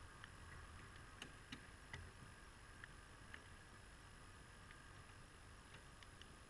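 Near silence, with about eight faint, irregular light clicks over a steady low background hiss.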